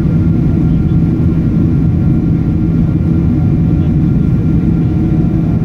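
Boeing 777-200ER cabin noise in flight, heard from a seat over the wing: a steady, loud, low drone of jet engines and airflow with faint steady whining tones above it.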